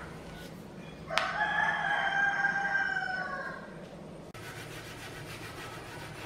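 A rooster crowing once: a single long call of about two and a half seconds that starts suddenly about a second in. A steady low hum follows it.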